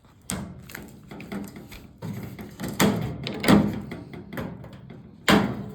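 Metal parts of a toaster oven being pulled apart and handled: a string of clanks and rattles, the loudest about three and a half and five seconds in.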